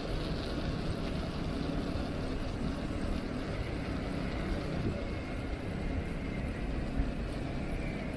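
Wind buffeting the microphone and tyre rumble from a bicycle being ridden, a steady low rumbling noise with no distinct events.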